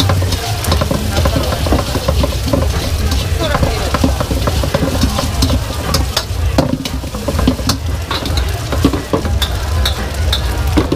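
Egg frying and sizzling in a steel wok while a metal ladle stirs and scrapes it, with many short clinks of metal on metal.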